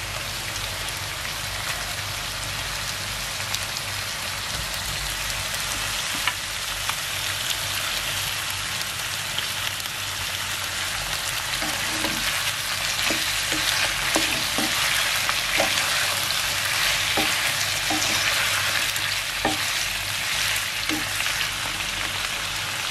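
Raw chicken pieces sizzling steadily in hot oil with onions in a non-stick fry pan. From about halfway a wooden spatula stirs them, with short knocks and scrapes against the pan every second or so.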